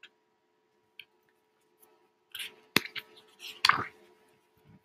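A picture book's pages being turned and the book handled: paper rustling, with a couple of sharp clicks in the second half and a faint tick about a second in.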